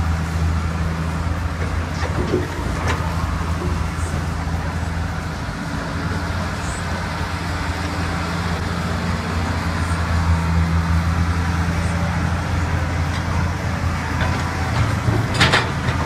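Komatsu crawler excavator's diesel engine running steadily as the machine digs and loads, with a couple of light knocks about two and three seconds in and a sharp knock near the end.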